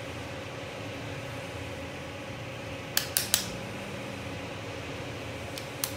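Sharp metal clicks from a revolver frame and screwdriver being handled: three quick clicks about halfway through and two more near the end, over a steady fan hum.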